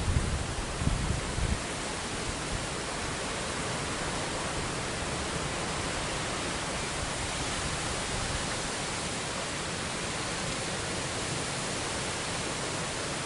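Strong wind blowing across the microphone: a steady hiss, with low buffeting gusts in the first second or so.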